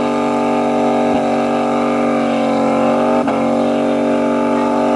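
Car engine held at high revs during a burnout, the rear tyres spinning in place. The pitch holds steady and loud, with two brief dips about a second and about three seconds in.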